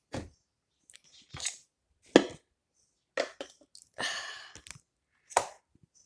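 Plastic slime containers being handled and set down: a few separate clacks and knocks, with a short scraping rustle about four seconds in.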